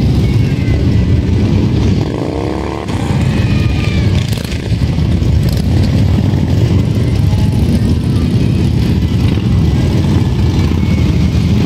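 A procession of motorcycles and trikes riding slowly past in close file, their engines running as one continuous, steady sound. One engine's pitch rises briefly about two seconds in.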